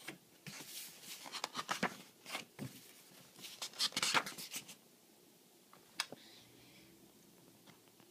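Paper rustling and crinkling as loose sheets and a booklet are handled, in a quick run of short scrapes and crackles for about five seconds, then one sharp click and quieter.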